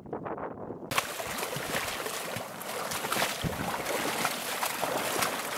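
Wading through shallow marsh water under a skin of thin ice: ice crunching and crackling underfoot with water sloshing, a dense run of small cracks and splashes.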